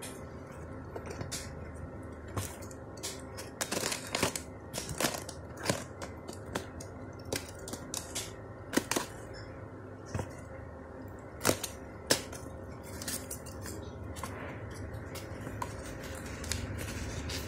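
Cardboard parcel wrapped in packing tape being handled and torn open: irregular crackles, crinkles and sharp snaps of tape and cardboard, the loudest a few cracks past the middle. A low steady hum grows near the end.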